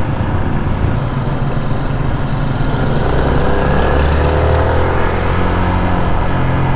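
Motorcycle engine running while riding on the road, with steady road noise. From about two seconds in, the engine note rises as it speeds up.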